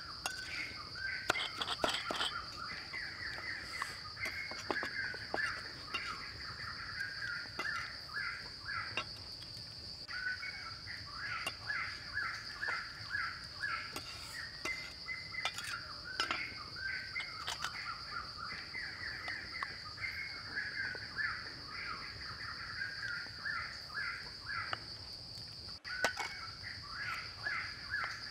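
Rural outdoor ambience: a steady high insect drone with birds calling over and over, and a few sharp knocks of a cleaver chopping on a wooden board in the first couple of seconds.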